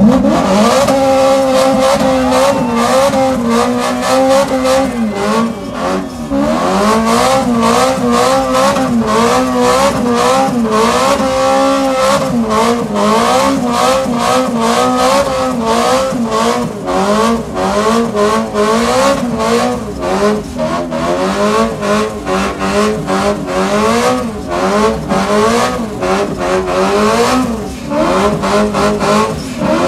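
Car engine held at high revs, its pitch wavering up and down continuously, typical of a car doing a burnout or donuts with its tyres spinning. Many short sharp crackles run through it.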